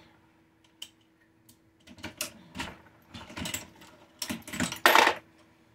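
Lee reloading press being cycled by hand while loading .38 Special rounds: a run of metallic clicks and clacks from the handle stroke and the parts working, with a louder clatter about five seconds in.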